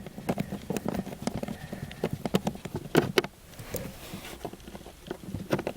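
Nut driver working the small 5.5 mm screws out of a blower motor resistor's plastic housing: a quick, irregular run of light clicks and knocks for about three seconds, then a few more near the end.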